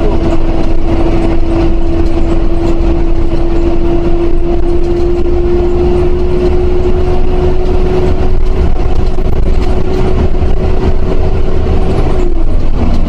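Intercity bus's diesel engine running under way, heard from inside the cabin: a heavy low rumble with a steady whine that creeps slightly higher in pitch and drops away near the end.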